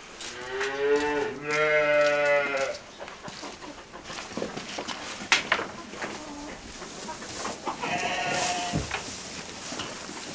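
Sheep bleating: a long, wavering bleat of about two seconds near the start and a shorter one about eight seconds in, with rustling and a few small knocks in between.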